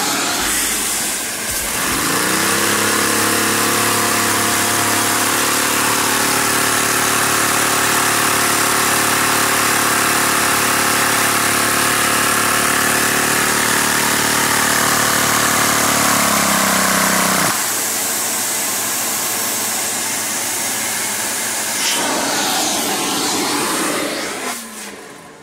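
Lego V-twin vacuum engine running at high revs, powered by the loud rushing suction of a vacuum cleaner. Its pitched running hum climbs over the first couple of seconds, holds steady, then stops abruptly about two-thirds of the way through as its camshaft fails. The vacuum's rushing noise carries on until it is shut off near the end.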